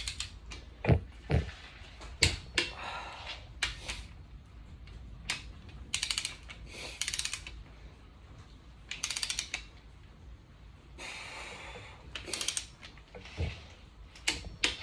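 Ratchet wrench tightening the cylinder head bolts on a Toyota 22R engine: short runs of rapid ratchet clicks between sharp metallic knocks and clinks of the tool on the bolts.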